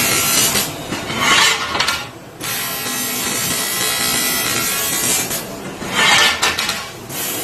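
Harsh, continuous rasping hiss of laser welding, swelling louder twice and dipping briefly near the two-second mark.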